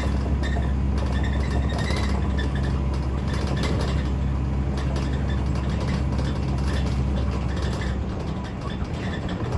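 Scania N94UD double-decker bus's diesel engine, heard from the upper deck, pulling steadily with a low drone, while seat frames and fittings rattle. The engine note falls away about eight seconds in as the bus eases off.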